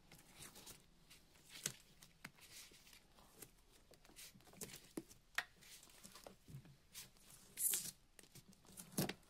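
Black electrical tape being peeled and unwound from the end of a power cable: faint crinkling and tearing with scattered small clicks, and one brief louder rip a little after three-quarters of the way in.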